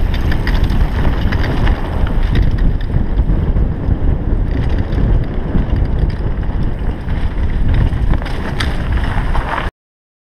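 Heavy wind buffeting on a GoPro's microphone during a fast mountain-bike descent, with knocks and rattles from the bike rolling over rough grass and dirt. The sound cuts off abruptly near the end.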